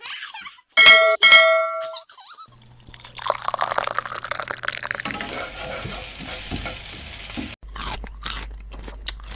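Two short, loud ringing tones about a second in. Then food sizzling and crackling as it fries in a miniature pan, louder from about halfway through, until it stops abruptly. Scattered clicks follow.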